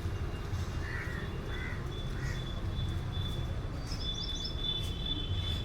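Birds calling outdoors: three short calls about a second in, then a quick run of high chirps about four seconds in, over a steady high thin tone and a constant low rumble.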